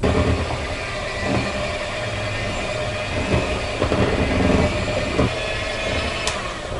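Electric hand mixer running with its beaters in a plastic bowl, beating a thick requesón (cottage cheese) and sugar batter. It starts suddenly and is switched off near the end.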